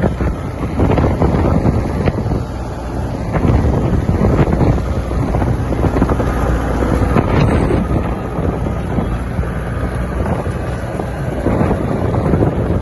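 Diesel engine of a Volvo BL70 backhoe loader running steadily, with wind buffeting the microphone.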